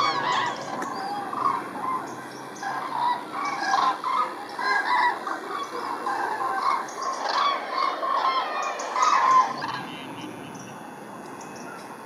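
A flock of migrating common cranes calling in flight: many overlapping trumpeting calls, a dense chorus that thins out and fades about ten seconds in.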